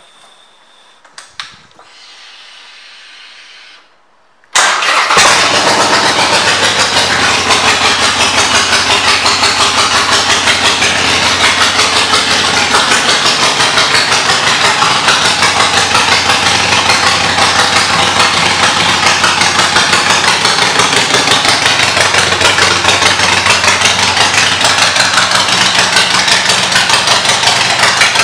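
Harley-Davidson Iron 883's air-cooled 883 cc V-twin with aftermarket exhaust pipes starts up suddenly about four and a half seconds in. It then runs loud and steady with a rapid pulsing exhaust beat.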